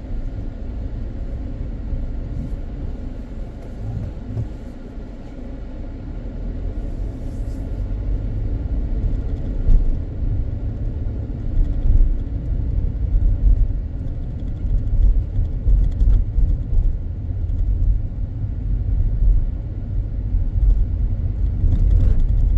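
Car driving slowly, with a steady low rumble of engine and road noise. It grows a little louder partway through, with a few brief knocks.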